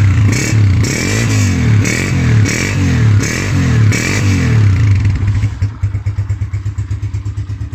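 United 125 motorcycle's single-cylinder four-stroke engine revved in a series of quick throttle blips for about five seconds, then dropping back to a steady idle. It is the bike just started from cold on the first kick without choke, running without any misfire.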